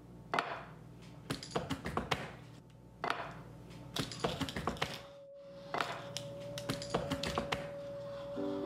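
Irregular clusters of small, sharp clicks and taps as a concrete fingerboard bench and a fingerboard are handled and set down on a hard stone countertop. About halfway a steady held musical note comes in underneath.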